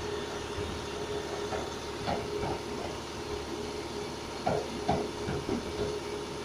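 Flatbed recovery truck running with a steady whine from its winch as it pulls a damaged hatchback up the tilted bed. Short squeaks come about two seconds in, and two louder ones come around four and a half and five seconds in.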